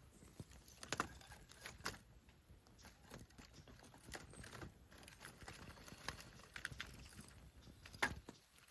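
Wood campfire crackling, with irregular sharp pops; the loudest come about a second in and near the end.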